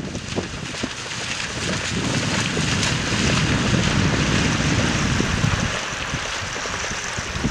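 Wind blowing across the microphone, a steady low rumble and rush, over the wash of choppy shallow water.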